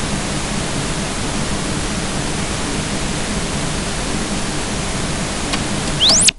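Television static hiss, steady throughout; near the end a quick rising whine and the hiss cuts off suddenly as the set is switched off.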